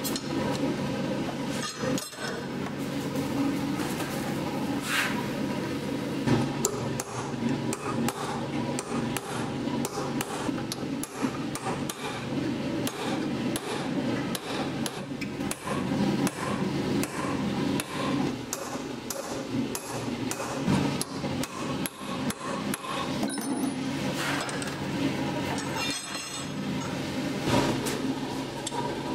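Hammer blows on red-hot steel on an anvil while a raven-skull pendant is forged, many strikes in quick, irregular runs over a steady low hum.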